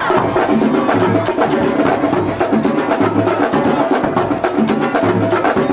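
Drum-heavy band music: a fast, steady run of sharp stick clicks over a low drum figure that comes back about every two seconds.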